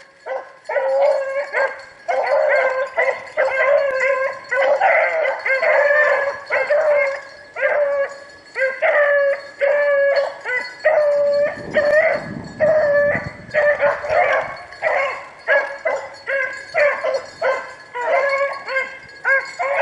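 Rabbit hounds baying on a rabbit's track, with rapid overlapping bays of two or three a second, the sound of the dogs running the rabbit.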